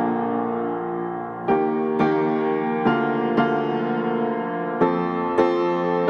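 Background piano music: slow chords struck a few at a time, each ringing and fading before the next.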